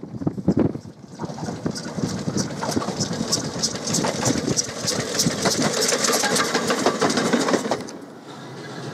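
Ffestiniog Railway Double Fairlie steam locomotive Earl of Merioneth working steam as it approaches, its exhaust chuffing in a fast, even beat over a low rumble. The sound cuts off near the end, leaving a quieter steady background.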